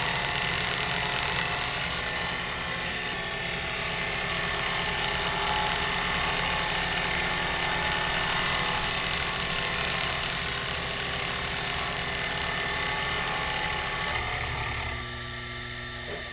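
Sherline CNC mill's spindle running with its end mill cutting an aluminum plate, a steady machining noise. About fourteen seconds in the cut ends and the sound drops to a quieter, steady run.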